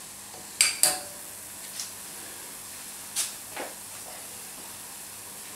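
A metal spoon knocks against a stainless steel saucepan while a thick roux and milk mixture is stirred. There are two sharp clinks close together about half a second in, then a few lighter taps.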